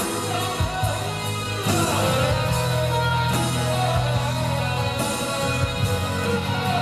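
Instrumental interlude of a pop song's backing track, with guitar and a steady bass, playing between sung verses.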